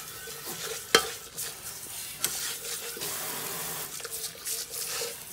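Tap water running from a kitchen faucet into a stainless steel Thermomix bowl as it is rinsed, splashing out onto soapy foam in the sink. A single sharp knock about a second in.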